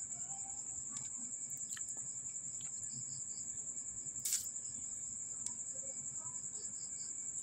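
Insect trilling steadily at a high pitch in a fine pulsing rhythm. A few faint clicks and one short scratchy sound come about four seconds in.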